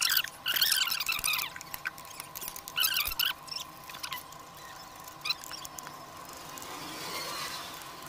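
Short high-pitched metal squeaks and sharp clicks in scattered bursts, from a hand tool working on the bolts of a scooter's rear hub and gearbox case. They come thickest in the first second and again around three to five seconds in.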